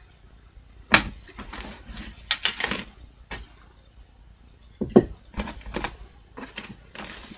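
Rustling and knocks of clothes and a bag of presents being handled and rummaged through, with a sharp knock about a second in and another about five seconds in.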